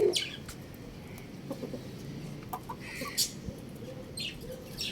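Chickens calling: a string of short clucks and high chirps, a few seconds apart, with no full crow.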